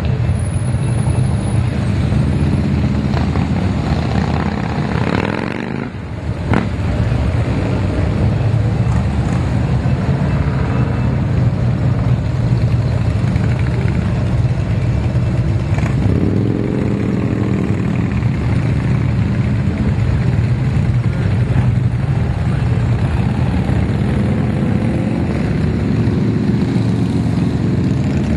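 Street traffic passing steadily: motorcycles, including touring bikes, mixed with pickups and vans, their engines running with a deep, continuous rumble. There is a brief lull about six seconds in, then another vehicle passes with a swelling engine note around the middle.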